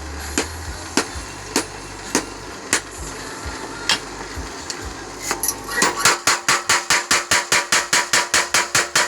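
A blacksmith's mechanical power hammer at work. Single strikes land about every half second over a low motor hum, then about six seconds in it breaks into a fast, steady, louder hammering of about four blows a second.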